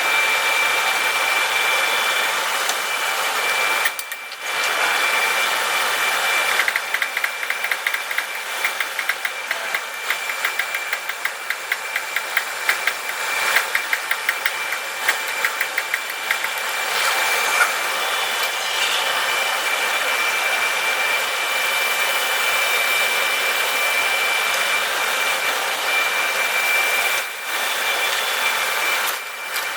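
Electric grinder running with a steady high whine while a drill bit is sharpened against it; a rapid, even rasping runs through the middle for several seconds.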